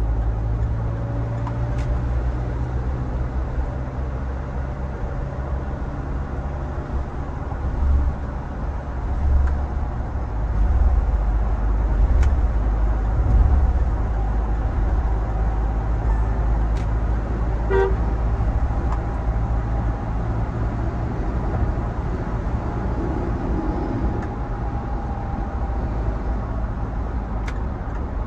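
Mahindra Thar 4x4 on the move: a steady low engine and road rumble that swells a little a third of the way in. A short, bright blip sounds about two-thirds of the way through.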